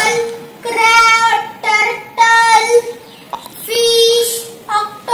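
A child singing in a high voice: a series of short phrases with long held notes and brief pauses between them.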